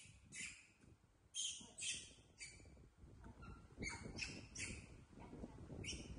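Baby macaques giving a string of short, high-pitched squeaks and chirps, with low rustling and handling noise between them.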